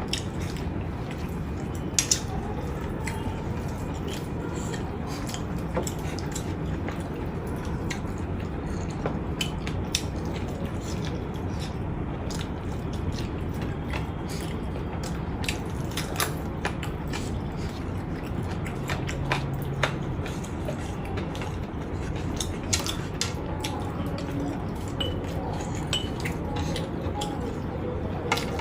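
Eating sounds: chewing with scattered sharp clicks of cutlery or fingers against a plate, over a steady background rumble.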